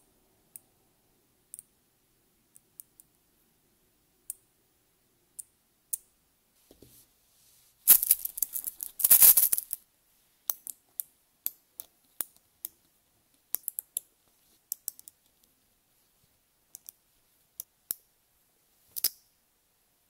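Small neodymium magnetic balls clicking as they snap together: scattered sharp single clicks, with a dense rattle of many balls clacking together about eight seconds in, the loudest part.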